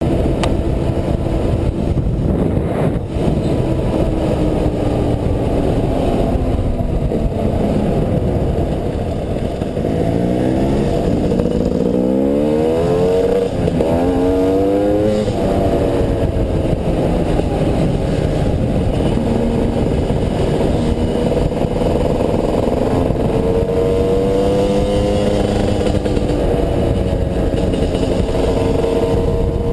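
300cc two-stroke enduro motorcycle engine running at low, changing throttle. Several quick revs rise and fall about ten to fifteen seconds in.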